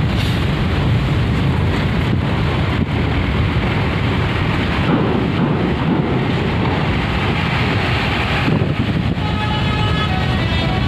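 Hino RK260 coach's diesel engine running as the bus drives off the ferry ramp and pulls away, a heavy low rumble, with wind buffeting the microphone. A faint steady pitched tone comes in about eight seconds in.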